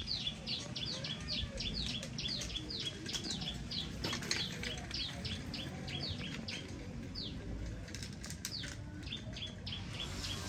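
A small songbird calling a fast run of short chirps, each sliding downward in pitch, about three to four a second, with a pause midway. A low background rumble runs underneath, and a few sharp clicks come near the end.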